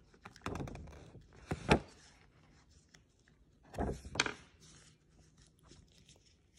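Disposable plastic gloves crinkling while handling a small plastic food-colouring dropper bottle, with three bursts of clicks and taps, the loudest a little under two seconds in.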